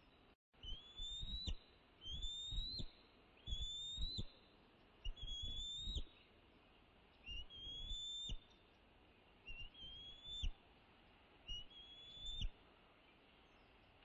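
Bald eagle calling: a series of seven high, thin whistled notes, each about a second long, rising slightly and ending abruptly, about one every one and a half seconds. These are alarm calls made while on alert at the nest.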